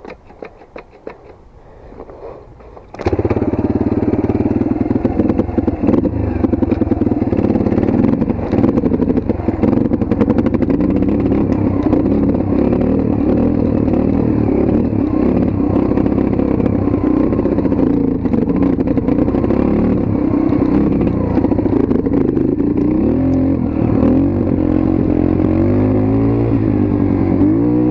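Motorcycle engine starting suddenly about three seconds in, then running steadily, with the revs rising and falling near the end.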